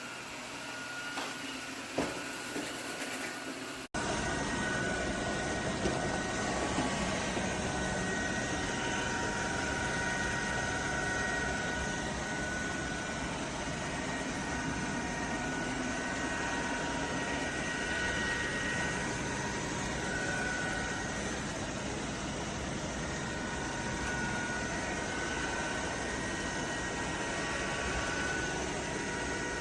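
iRobot Roomba robot vacuum running: a steady whir with a high, even whine. A cut about four seconds in leads to a louder, closer take of the same running sound, after a couple of faint clicks before it.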